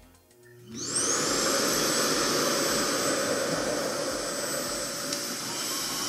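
Revair reverse hair dryer's suction motor starting up with a rising whine about a second in, then running steadily with a loud rush of air drawn through its hose, set to speed 2.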